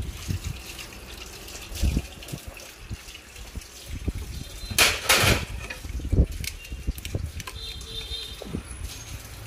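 Kitchen work sounds: scattered light knocks and clatter, with a short rush of water from a tap about five seconds in.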